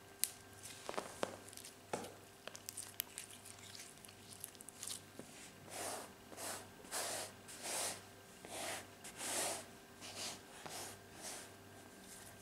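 Store-bought slime mixed with makeup powder crackling and clicking as hands knead it, then a hand rubbing back and forth across the powder-dusted padded seat top: about nine swishes, a little over half a second apart, starting about six seconds in.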